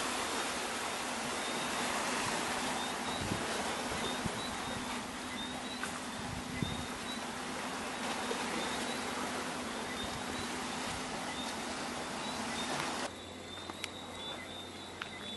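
Steady rush of ocean surf with wind noise on the microphone. About 13 seconds in it cuts off abruptly to a quieter outdoor background with a few light clicks, while a faint high chirping repeats throughout.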